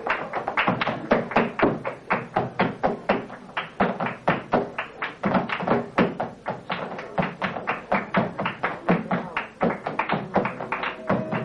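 Flamenco footwork (zapateado): the dancer's shoe heels and toes striking a wooden stage in a fast, steady rhythm of about three to four strikes a second. Flamenco guitar plays faintly underneath and comes in more strongly near the end.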